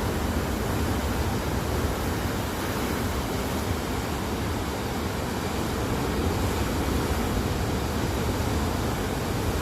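Ocean surf washing over coastal rocks: a steady rush of breaking water with a low rumble, easing slightly and then swelling again about halfway through.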